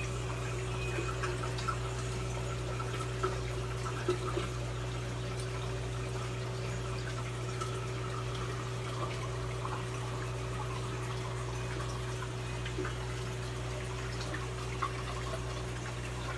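Steady hum and water-flow noise of a nano reef aquarium's running pumps and circulating water, with a few small ticks.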